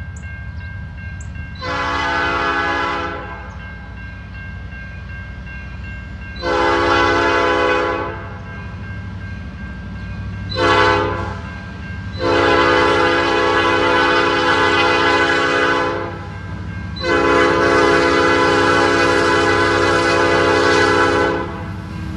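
Approaching diesel freight locomotive's air horn sounding five blasts, long, long, short, long, long: the grade-crossing warning pattern. A steady low rumble of the train runs underneath.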